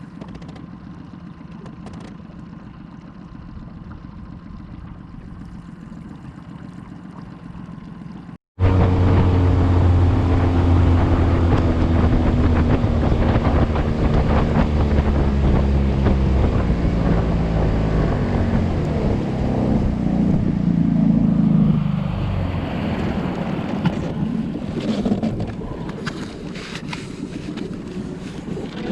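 Motorboat engine running under way, with wind and water noise. A quieter steady hum gives way abruptly about eight seconds in to the loud engine, whose pitch slides slowly downward before shifting and easing off near the end.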